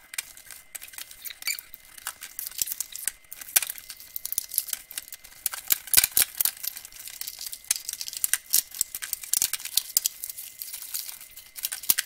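Clear plastic clamshell package being cut open with a folding knife and pulled apart: irregular crackling, crinkling and tearing of the stiff plastic, with many sharp clicks.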